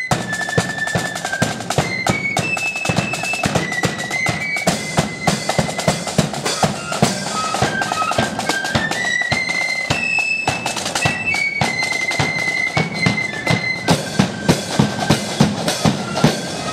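Marching flute band playing a tune: flutes carry a melody of held high notes over rapid snare drum strokes and a bass drum.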